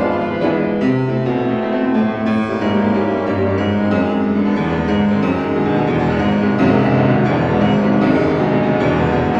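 Background music: piano playing a slow classical-style piece, notes ringing and overlapping.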